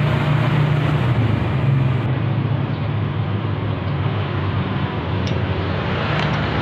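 A motor running steadily, with a constant low hum under a continuous noisy rush.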